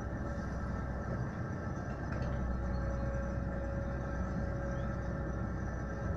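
Diesel engine of a Komatsu PW140 wheeled excavator running steadily as the machine swings and digs soil, heard as a continuous low drone with a thin steady whine.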